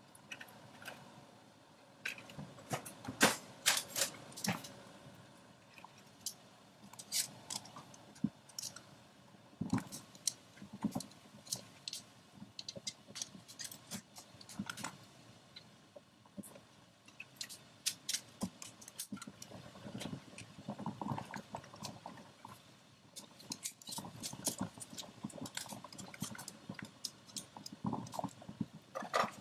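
Metal kitchen tongs clicking and clinking against a stainless steel saucepan while lasagne sheets are fed into boiling water, in irregular sharp taps, the loudest a few seconds in, over the faint bubbling of the water.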